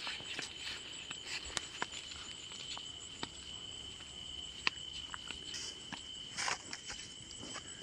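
Steady high-pitched trill of night insects, crickets, with scattered light clicks and rustles of footsteps along a dirt field path, and one louder rustle of brushed leaves about six and a half seconds in.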